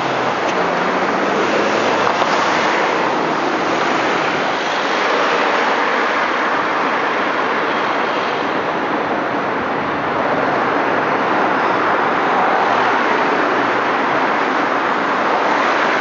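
Steady rushing roar of road traffic, with no distinct events and no clear engine note.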